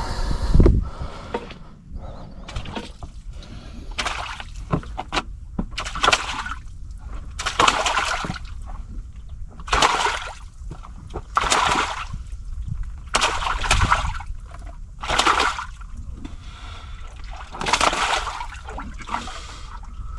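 Sea waves washing and splashing against the shore in repeated surges about every two seconds, over a steady low rumble of surf.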